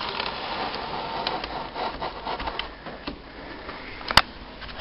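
Rubbing and scraping noise with scattered small knocks, louder for the first couple of seconds, and one sharp click about four seconds in.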